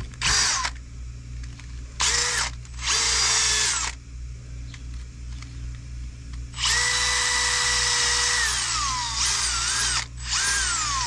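Cordless drill run in six short bursts in the small holes of a truck wheel hub, cleaning them out. Each burst whirs at a steady pitch and winds down when the trigger is released; the longest runs for nearly two seconds near the middle.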